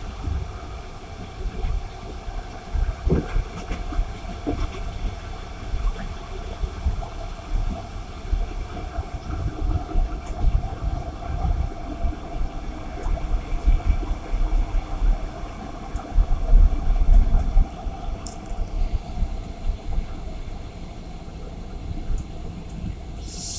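Passenger train in motion: a steady low rumble of the rolling stock with a few faint knocks.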